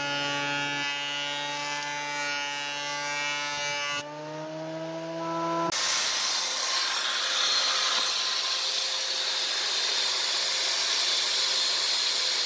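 Power-tool work: a steady pitched motor hum, a whine rising in pitch about four seconds in, then from about six seconds a steady rough grinding noise.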